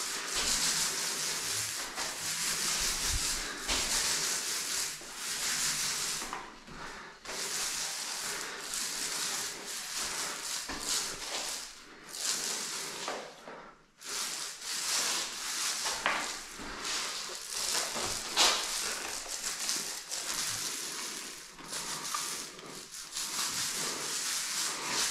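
Paint roller spreading a thick coat of gypsum skim compound over a wall: a rolling hiss in long repeated strokes, with a few short breaks.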